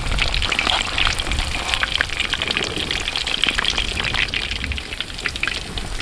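Duck legs deep-frying in hot oil in a wok: a steady, dense sizzle and crackle of many tiny pops, easing slightly near the end.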